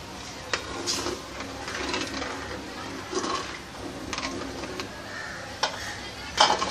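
A steel spoon stirring milk into flour-coated vegetables and chicken in a stainless steel pot, scraping and clinking against the pot several times.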